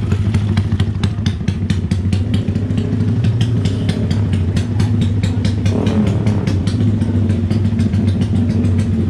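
Modified racing motorcycle engine idling loudly, its exhaust popping in an even beat of about seven a second over a steady low drone.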